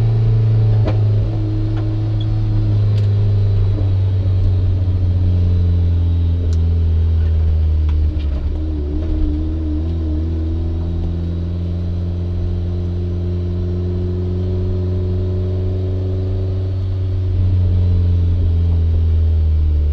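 Turbocharged 1994 Mazda Miata's 1.8-litre four-cylinder engine pulling steadily at quarter throttle, a smooth, even drone with no misfire or cutting out. It gets louder near the end.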